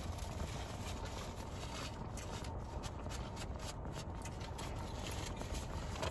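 Chewing and soft mouth noises, with a few faint clicks a couple of seconds in, over a steady low rumble inside a car.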